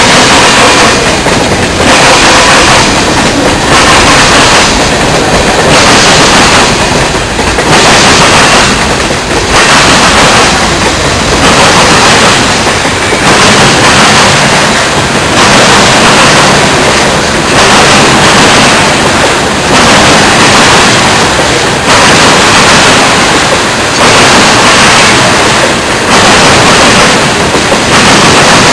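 Freight cars of a manifest train rolling past close by, a loud, dense rumble and clatter of wheels on rail that surges about every two seconds.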